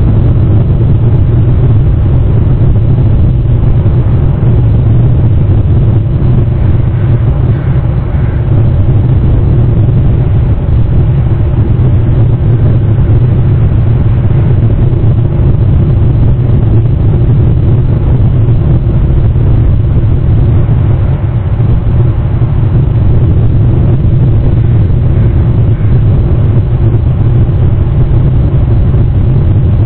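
Steady, loud low rumble of background noise on the nest camera's microphone, with no clear call or other event standing out.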